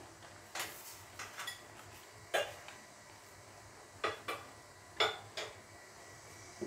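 Cooking spoon clinking and knocking against the side of a stainless steel pot while stirring chunks of vegetables in broth, about eight irregular strikes.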